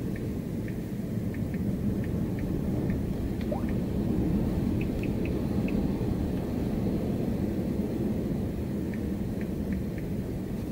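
Steady low rumble of wind and rain as a severe squall line arrives, with a few faint, short high chirps scattered through.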